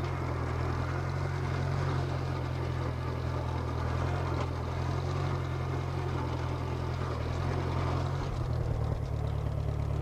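Case 310 crawler dozer's engine running steadily as the machine drives over the dirt, its low note shifting a little about eight seconds in.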